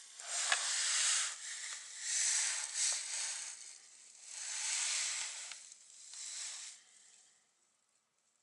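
An animal hissing repeatedly, about six separate hisses of half a second to a second and a half each, with short gaps between them.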